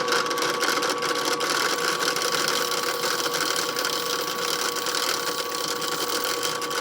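Drill press running steadily with an even whine, a 3/32 bit opening a pilot hole in metal under almost no load.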